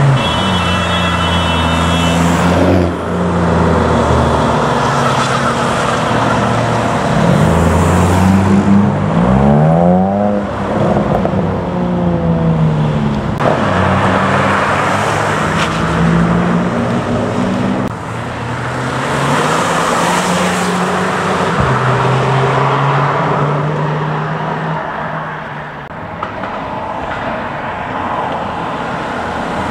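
Car engines revving hard during burnouts and drifts, with tyres spinning. The engine note rises and falls again and again, with a quick run of sharp revs about ten seconds in.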